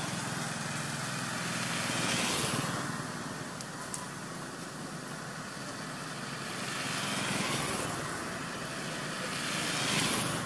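Road traffic: a motor vehicle engine running with a steady low hum, and passing traffic swelling up and fading three times.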